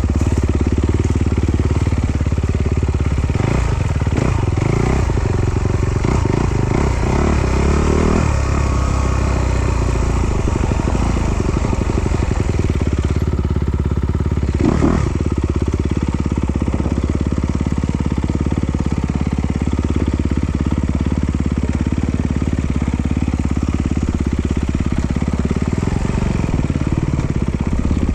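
Off-road trail motorcycle engine running steadily, with a few clattering knocks a few seconds in and another about halfway.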